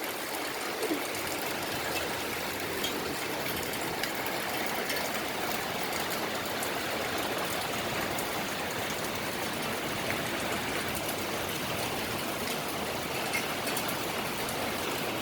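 Steady rain falling, an even rushing hiss with a few faint ticks.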